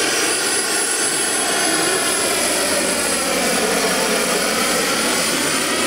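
Turbine-powered radio-controlled scale Lama helicopter in flight: a steady high turbine whine over the engine and rotor noise, whose tones sink in pitch around the middle and rise again near the end.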